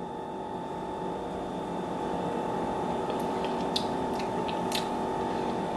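A steady hum made of several constant tones, with a few faint light clicks about three to five seconds in.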